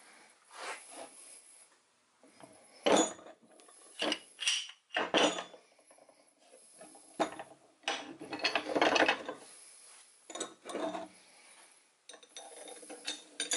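Metal vise parts being handled and fitted together: the sliding jaw and its screw clank and scrape as they are slid back into the cast vise body. The knocks are irregular, with a longer scrape about eight to nine seconds in.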